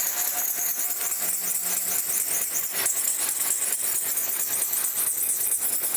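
Kitchen knife blade being stroked back and forth on a coarse 400-grit Naniwa Chosera whetstone: a steady gritty scraping hiss with a quick repeated stroke rhythm.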